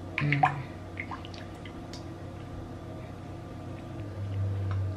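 Silicone spatula stirring a runny garlic-butter marinade in a glass bowl: wet squishing and light clicks of the spatula against the glass, busiest near the start. A low steady hum runs underneath and grows louder near the end.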